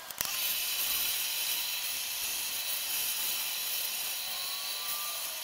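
Handheld gas torch burning with a steady hiss as its flame scorches a pine board.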